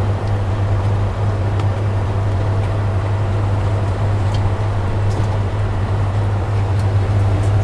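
Steady low hum of running refrigeration machinery, such as soft-serve and slush machines, with a few faint light clicks.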